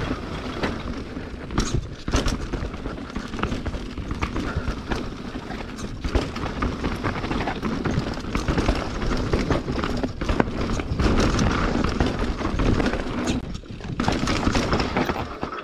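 Mountain bike descending a rough natural trail: tyres running over dirt, roots and stones, with frequent sharp knocks and rattles from the bike, and a brief lull near the end.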